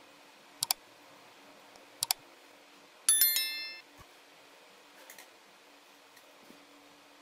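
Sound effects for an animated like-and-subscribe button: two quick double mouse clicks, then a bright notification-bell chime that rings for well under a second and fades, then a faint double click.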